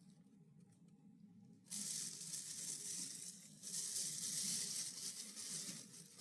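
Takeout food packaging being handled, with plastic and foil rustling and crinkling in two long noisy stretches that start about a second and a half in.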